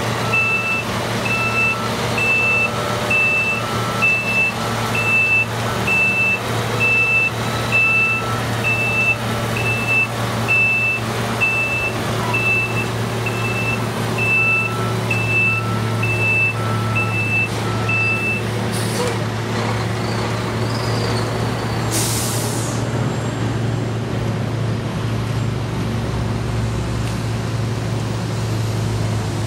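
Heavy truck engine running steadily, with a reversing alarm beeping about every two-thirds of a second until a little past halfway, then a short loud hiss of air about three-quarters of the way through.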